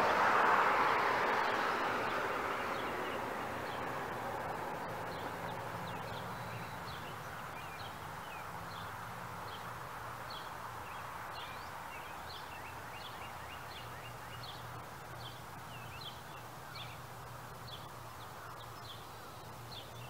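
Small birds chirping: many short, high calls repeating every second or so. Under them, a loud rushing noise fades away over the first few seconds, with a faint low hum beneath.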